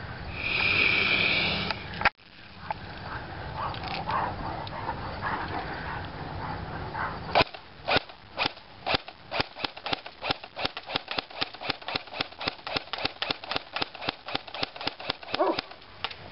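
Airsoft gun firing a long string of shots, sharp snaps that start a second or so apart and settle at about three or four a second. Before them, a loud high-pitched sound cuts off abruptly about two seconds in.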